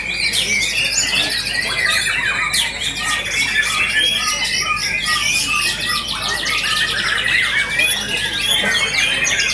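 White-rumped shamas (murai batu) singing over one another: a dense, unbroken chorus of loud whistles, trills and rapid chattering notes, with no pause.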